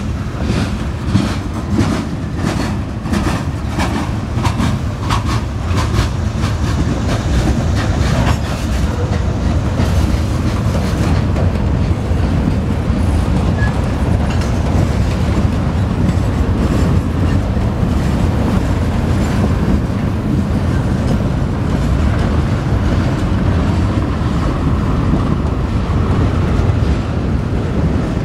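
Freight train's boxcars rolling past at a road grade crossing: a steady, loud rumble of steel wheels on rail, with quick clacking of wheels over the rail joints and crossing during the first eight seconds or so, then a smoother rumble.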